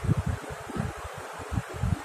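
Moving air buffeting the microphone in irregular low rumbles over a steady hiss.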